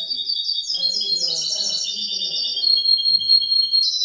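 Young goldfinch × canary mule (hybrid) singing: a continuous, fast twittering run of high, quickly repeated notes.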